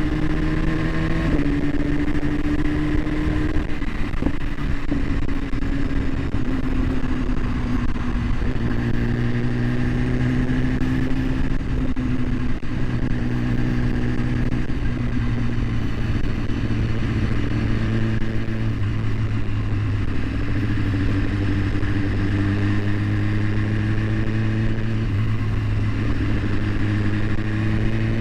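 Motor vehicle engine running steadily, recorded through a GoPro HERO7 Black's microphone, with a heavy low rumble under it. Its pitch drifts down over the first several seconds, then holds and rises slightly near the end.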